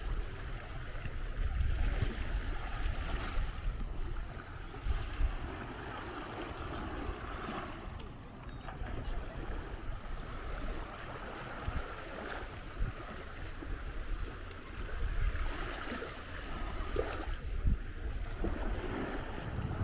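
Small sea waves washing onto a sandy beach, with wind rumbling on the microphone.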